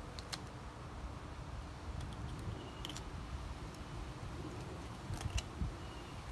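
A knife slitting a green iguana's belly skin on a foam cooler lid: scattered soft clicks and scrapes, with a few brief squeaks, over a low steady rumble.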